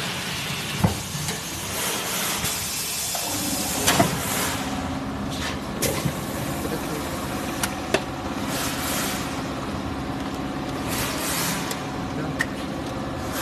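Shrink wrap machine running: a steady motor hum sets in about three seconds in, with scattered sharp clicks and knocks and a few short bursts of hiss.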